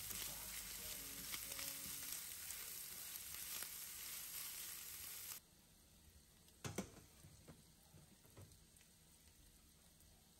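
Diced ham sizzling as it fries in a pan while being stirred with a spatula, a steady hiss that cuts off suddenly about halfway through. After it, the sound is much quieter, with one sharp click and a few small ticks.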